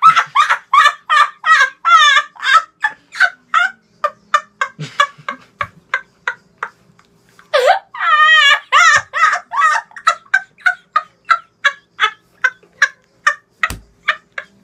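A boy laughing hysterically in rapid, high-pitched bursts of about three to four a second, in two long runs that turn quieter for a couple of seconds near the middle.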